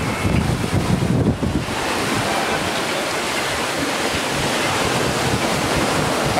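Waves washing onto a sandy beach in a steady rush, with wind buffeting the microphone, heaviest in the first second and a half.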